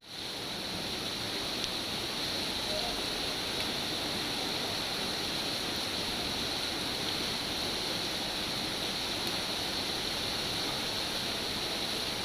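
Steady, even rain. Right at the start it drops out for an instant and fades back in, as at a loop or edit point.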